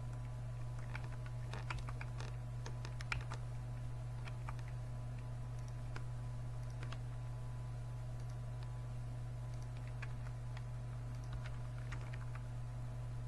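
Computer keyboard typing: several short bursts of key taps with pauses between them, over a steady low hum.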